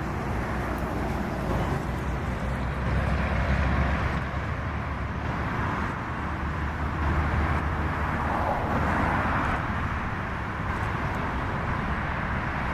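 Truck engine rumbling: a steady deep engine note with a noisy exhaust sound over it, swelling and easing a few times.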